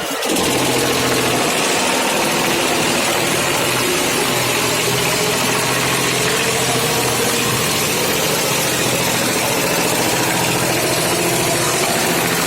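Yulong T-Rex6585A wood chipper running steadily: an even, loud machine drone with no bursts or knocks.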